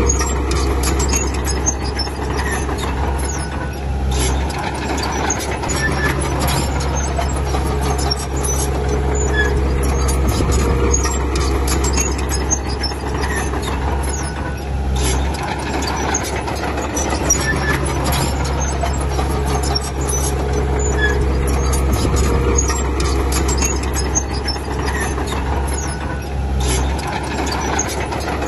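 Diesel bulldozer at work: its engine runs steadily under load, the note shifting every few seconds, with metallic clicking and squeaking from the machine over it.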